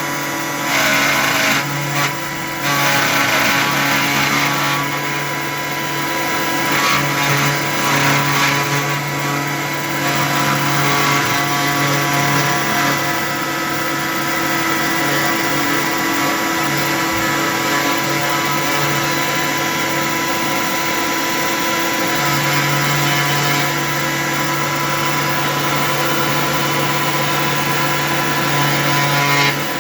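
A small CNC 3018 router and its cyclone dust vacuum running steadily, with several steady whining tones over a continuous motor hum. Irregular rougher noise comes and goes through the first half.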